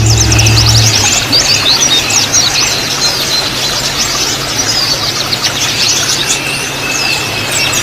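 White-eyes (pleci) twittering: dense runs of quick, high, downward-sweeping notes, with a thin steady whistle at times. A low hum sounds in the first second.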